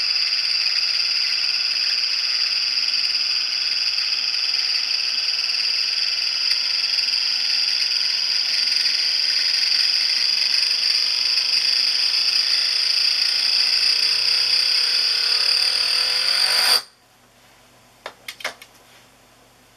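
Euler's disc made of polished tungsten carbide with a brass weight, spinning and rolling on a glass mirror: a loud, steady high-pitched ringing whir. Over the last few seconds a lower tone rises faster and faster in pitch as the wobble speeds up, then the sound cuts off abruptly as the disc comes to rest. A few faint clicks follow.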